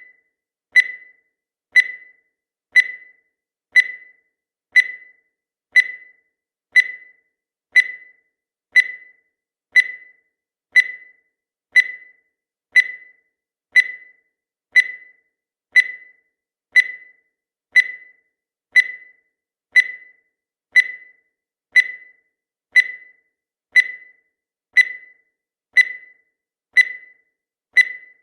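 Countdown timer sound effect: a short, high electronic beep once a second, each one fading away quickly, marking off the seconds of the count.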